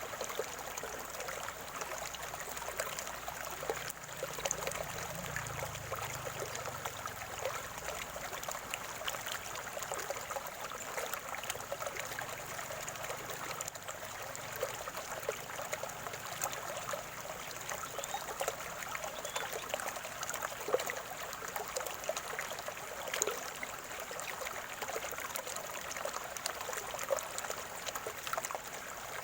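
Shallow stream of spring water trickling and gurgling steadily over stones, with many small splashes.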